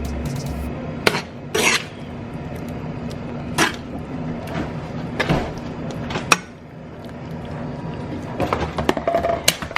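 Kitchen clatter of dishes and metal utensils: a handful of separate clinks and knocks spread out, over a steady low hum.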